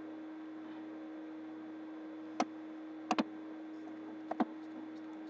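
A woman's hiccups: three short, sharp hics about a second apart, the last two each a quick double click, in a long-running bout that won't stop. A steady low hum runs underneath.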